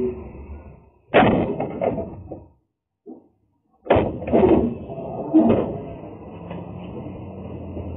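Loud bangs and rattling in a truck's metal cargo box as its door and boxes are handled: one bang about a second in and another just before four seconds, with a smaller knock shortly after.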